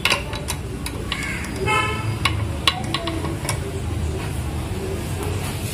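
Stainless-steel steamer pot and lid clinking and knocking as they are handled, several sharp metallic taps spread through, over a steady low hum. A brief horn toot sounds about a second and a half in.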